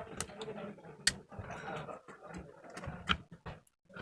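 Sharp clicks and taps with light handling noise from hand work on a small amplifier circuit board while its broken wires are being reattached: a faint click near the start, a loud one about a second in and another about three seconds in.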